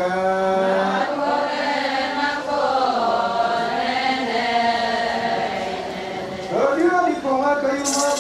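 Adi Ponung dance song: a group of women chanting together in a slow, drawn-out unison melody. A high hissing rattle comes in just before the end.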